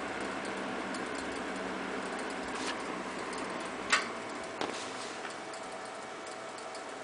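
Manning Bowman 12-inch electric box fan, built by Bersted, running with a low hum and the irregular ticking it makes, which sounds as if something is blowing around inside it; the owner suspects it needs oiling. A sharp click comes about four seconds in.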